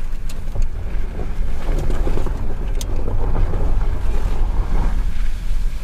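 A car driving slowly over a dirt road with patches of snow: a steady low rumble with wind buffeting the microphone. Tyre noise on the snow and gravel swells for a few seconds in the middle, with a few small clicks.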